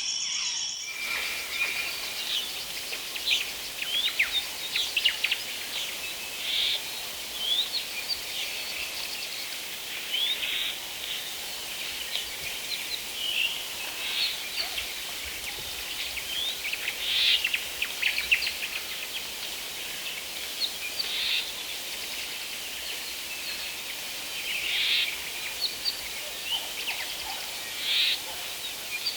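Forest ambience with several wild birds calling: short chirps, whistles and rising notes, some in quick clusters, over a steady high hiss. A different sound cuts off about a second in, where the bird sounds begin.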